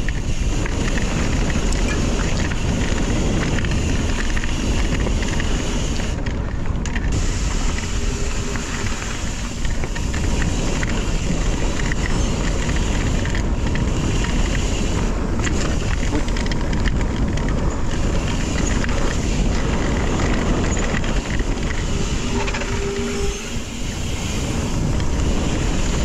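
Steady rushing wind noise on the microphone of a camera riding along on a mountain bike, with the bike's rolling noise underneath.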